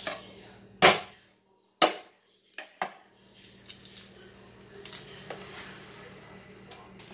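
Garlic clove being smashed under the flat of a kitchen knife on a wooden cutting board: two sharp whacks about a second apart, then two lighter knocks and faint clicks as the crushed clove is handled.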